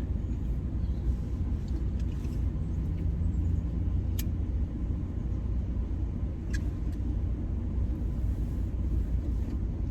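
Steady low rumble heard from inside a car, with two short clicks about four and six and a half seconds in.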